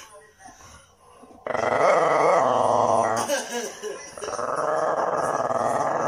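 English bulldog whining in long, drawn-out moans, three calls after a second and a half of quiet, pitch bending up and down: the dog is crying to be given a toy it can't reach.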